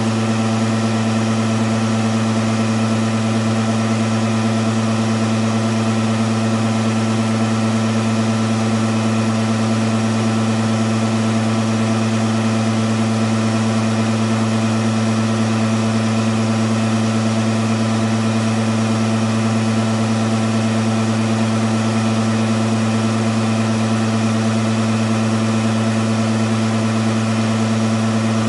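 Hematocrit centrifuge running steadily at speed, its motor driven through a rebuilt thyristor-and-DIAC speed regulator: a constant hum and whine that holds one pitch throughout.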